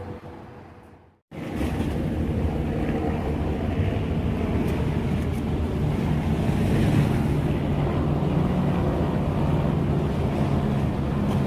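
Wind buffeting the microphone: a loud, steady low rumble. The sound fades and cuts out briefly about a second in, then comes back at full strength.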